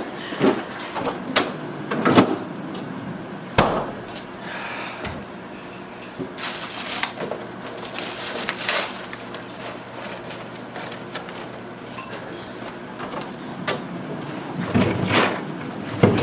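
Scattered knocks, clunks and bangs of kitchen handling, about a dozen spread unevenly, like a door being shut and dishes being moved.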